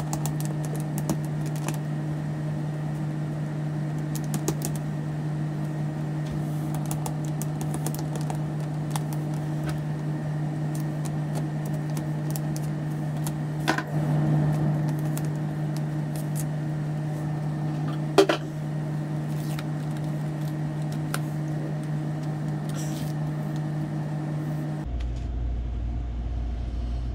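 A steady low hum runs underneath and cuts off suddenly near the end. Over it come scattered small clicks and crackles of firework fuses being pulled free from their cakes, with a sharper click about two-thirds of the way in.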